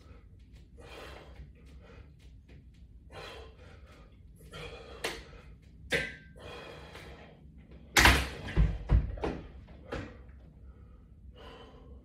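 Breathing in time with resistance-band pull-downs, with a couple of light metallic clicks from the bar and straps. About eight seconds in comes a loud clattering knock, several hits in quick succession, as the bar is released against the wall-mounted latch bar frame.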